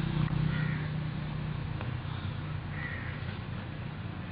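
Crows cawing: two hoarse calls about two and a half seconds apart, over a steady low hum.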